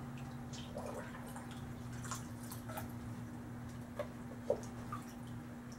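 Small water drips and light splashes in a bucket, with a few soft clicks, as a cleaning rod is worked down an air rifle barrel while rinsing it out after bluing. Two sharper ones come about four and four and a half seconds in. A steady low hum runs underneath.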